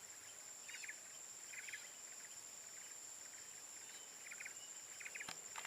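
Insects in a faint outdoor chorus: a steady high-pitched buzz, with a short chirp of three or four quick pulses repeating roughly once a second. Two sharp clicks near the end.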